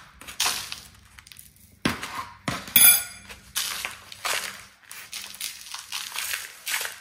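Hands rubbing dry seasoning into a chunk of raw beef, heard as irregular rustling, scraping strokes, with one sharp ringing clink about three seconds in.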